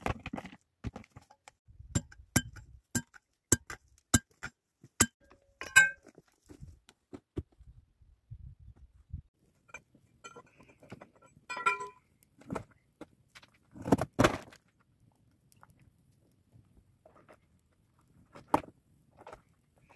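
Metal pick striking rock and stony ground: a run of sharp ringing clinks about every half second, then scattered clinks, one ringing metallic clink, and a heavier scraping thud of rock in the middle.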